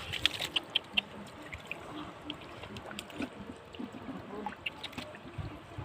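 Shallow flood water trickling and splashing, with a quick run of sharp ticks and clicks in the first second.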